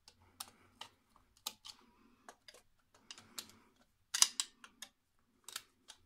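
Irregular small clicks and ticks of a flat-blade screwdriver working the terminal screws of a UK double electrical socket and knocking on its plastic body while the wires are undone. The sharpest clicks come about four seconds in.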